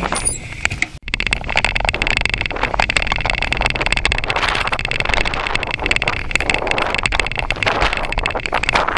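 Bicycle rolling along a paved path, with a steady dense clatter of the bike rattling over the paving and a low rumble beneath. It starts after a brief drop-out about a second in.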